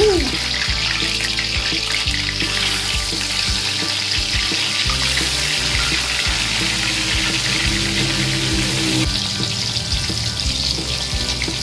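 Slices of battered tempe deep-frying in hot oil in a wok: a steady sizzle as more slices are added.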